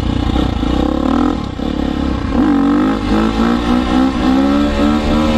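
Dirt bike engine running while riding. Its pitch rises as the throttle opens about two and a half seconds in, then holds fairly steady with small rises and dips.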